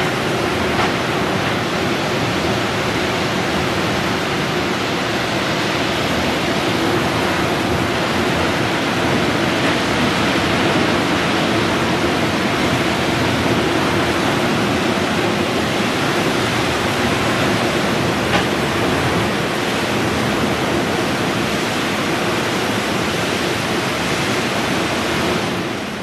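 Blizzard wind blowing hard and steadily, a dense, even rushing noise with no letup, fading out near the end.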